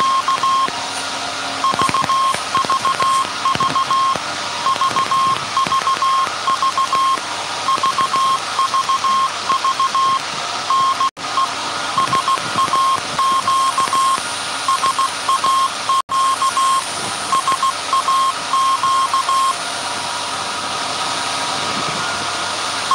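Morse code from SAQ's Alexanderson alternator transmission, keyed from punch tape and heard as a steady high beeping tone switched on and off in dots and dashes. The keying stops a few seconds before the end, over the steady running noise of the machine hall.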